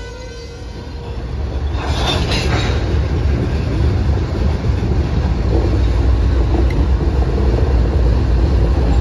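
Freight train hauled by diesel locomotives, with a low rumble and rail-car noise that builds over the first three seconds and then holds steady. There is a brief cluster of clanks about two seconds in.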